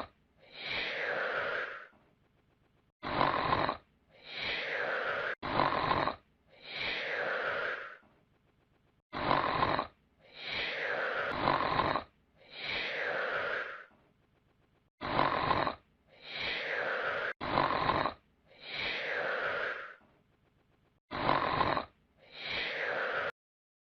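A sleeping man snoring, breath after breath, with loud pairs of snores (a short one, then a longer one) separated by short quiet gaps. The snoring stops suddenly near the end.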